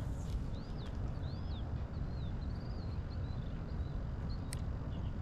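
Wind buffeting the microphone as a low steady rumble, with a bird giving a few short, high, arched chirps in the first half and a single sharp click near the end.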